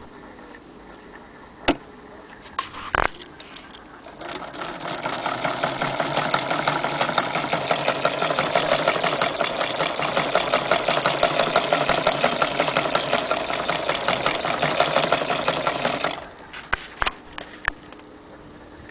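Antique Victorian hand-crank sewing machine stitching denim: a fast, even clatter of needle strokes that builds up about four seconds in and stops suddenly about three seconds before the end. A few single clicks of the mechanism come before and after the run.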